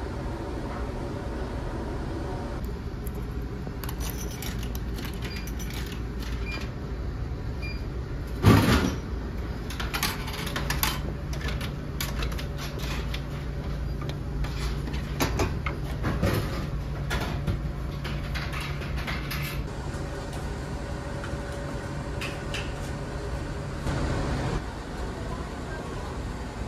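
A drink vending machine drops a plastic bottle into its dispensing tray with one loud thud about a third of the way in, followed by scattered clicks and rattles of the tray flap. Under it runs the steady low rumble of the ship's engines.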